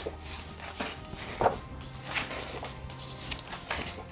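Pages of a large hardcover art book with glossy paper being turned by hand: several quick paper rustles and flaps. Soft background music with held low notes runs underneath.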